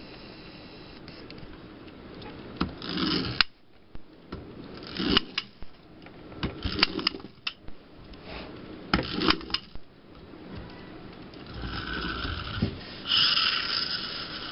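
A plastic wind-up toy airplane being handled, with bursts of clicking and clattering, then its clockwork spring motor whirring steadily for about three seconds near the end.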